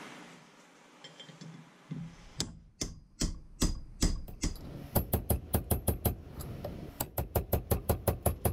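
Hammer striking a steel flat punch, driving the rotted old wooden handle out of the eye of a double-bit axe head clamped in a vise. Sharp metallic blows with a ringing edge begin about two seconds in, at roughly two to three a second, then quicken to about six a second from about five seconds in.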